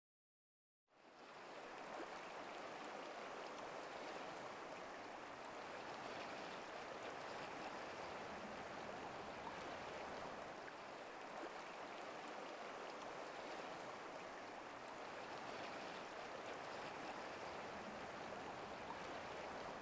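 Steady rushing of a flowing stream, fading in about a second in.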